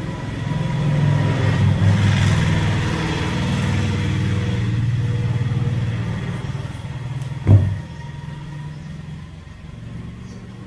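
A motor vehicle's engine hum that swells about a second in and fades away after about six seconds, like a vehicle going by. One sharp knock comes about seven and a half seconds in.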